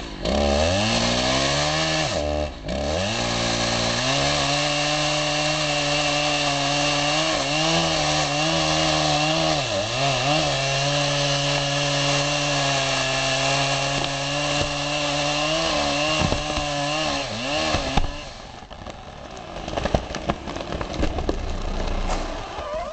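Husqvarna 3120 XP big two-stroke chainsaw revving up, then running at high revs with small dips in pitch as it cuts into a charred stump. The engine stops about 18 seconds in, leaving a rustling noise with scattered clicks.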